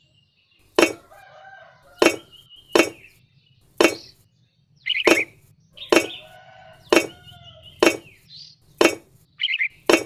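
Miniature clay bricks clicking as they are set down one after another, about one click a second. Chickens cluck faintly in between.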